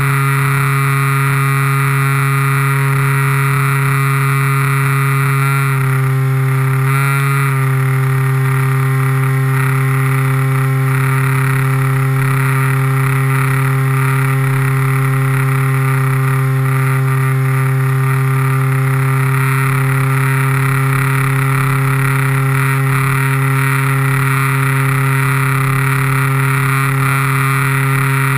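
Small electric motor and propeller of a radio-controlled model plane running at steady throttle in flight, heard close up from the plane itself: a loud, steady drone with a high whine above it. The pitch shifts briefly about six to seven seconds in.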